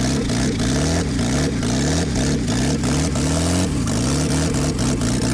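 Car engine running with a large piece cut out of its flywheel, revved up and down about once a second by a throttle rope. It runs rough because the crankshaft and flywheel are badly out of balance, which makes it vibrate violently.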